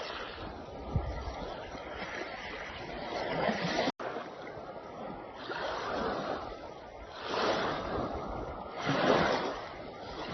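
Sea waves washing in, rising and falling in several surges, with a momentary dropout about four seconds in.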